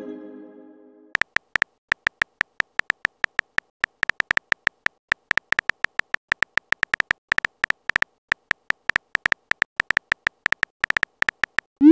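Phone keyboard typing sound effect: a long run of short, quick clicks, several a second, as a message is typed letter by letter. A chime fades out in the first second, and a short rising whoosh of the message being sent starts at the very end.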